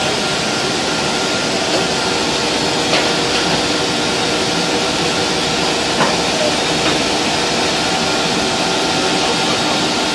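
Steady hiss and hum of distillery machinery around a copper still, with a couple of light metallic clicks about three and six seconds in.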